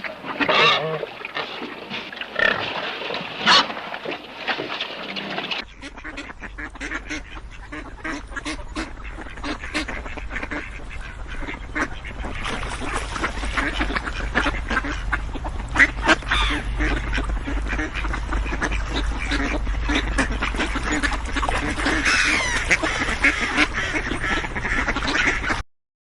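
Animal calls. About five and a half seconds in, the sound cuts to a dense stretch of many birds calling at once over a steady low rumble.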